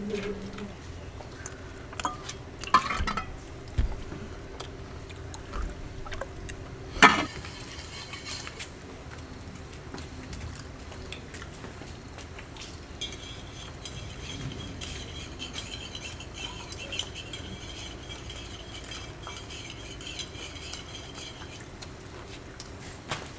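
Scattered clinks and knocks of clay bowls and steel spoons and pots as several people eat, with one louder clink about seven seconds in.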